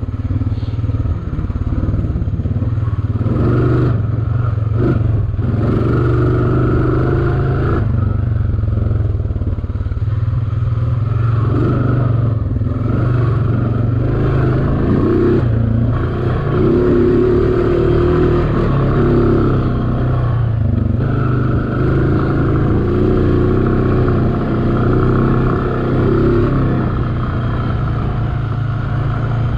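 A 2012 Honda Foreman ATV's single-cylinder engine running under way on a sandy trail. The engine note rises and falls as the throttle changes, with occasional sharp knocks.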